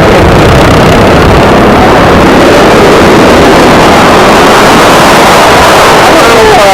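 Aircraft piston engine running at close range, loud and steady, so loud that the recording is overloaded and distorted.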